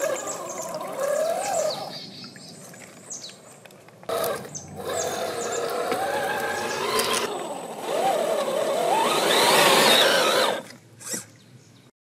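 The 550-size brushed electric motor and gear drive of a 1/8 scale RC crawler whining, its pitch rising and falling with the throttle. It drops back briefly a couple of seconds in, then climbs to its loudest, highest whine about nine to ten seconds in, and cuts off suddenly near the end.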